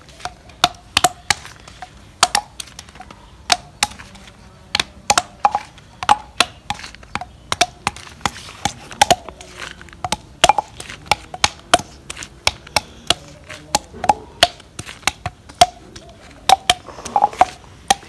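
Olives being cracked one at a time for curing, each struck with a drinking glass against concrete: a long series of sharp knocks with a short ring, about two or three a second with uneven spacing.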